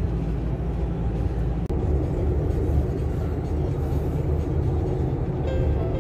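Steady road and engine rumble inside a moving car's cabin, broken by a momentary dropout about two seconds in; faint music comes in near the end.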